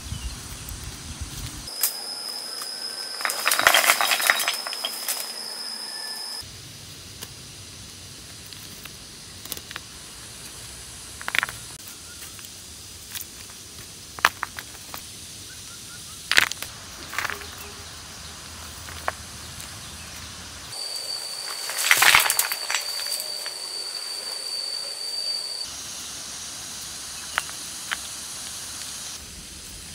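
Stones knocking together as they are picked off a pebble bed and dropped into a woven bamboo basket: scattered sharp clacks, with louder clattering about four seconds in and again around twenty-two seconds. A thin, steady high tone sounds through two stretches of several seconds each.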